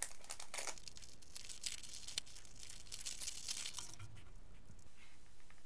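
Clear plastic wrap being torn and peeled off a hard plastic case, crinkling and crackling for about four seconds. A soft thud follows about four seconds in as the case is set down on a wooden table.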